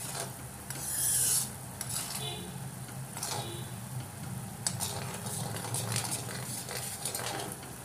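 Metal spoon stirring and scraping around an iron kadhai of boiling sugar syrup, with the syrup bubbling and sizzling; a louder scrape comes about a second in. The sugar and water are being cooked down to a one-string syrup.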